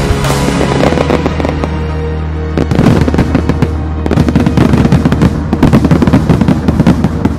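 Fireworks bursting in fast, crackling bangs over background music. The bangs start about a third of the way in and stop abruptly near the end.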